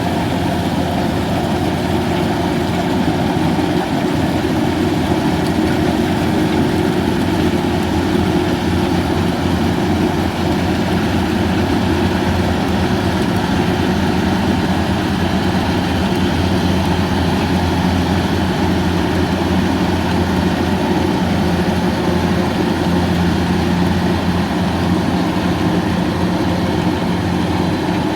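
Kubota rice combine harvester's engine running steadily, a loud even drone that holds without change.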